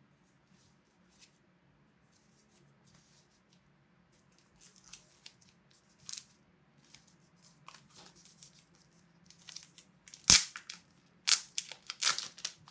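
Clear plastic wrapping being handled and torn off a small black case. Scattered soft rustles grow into crinkling, with one sharp snap about ten seconds in, then a burst of loud crinkling and tearing near the end.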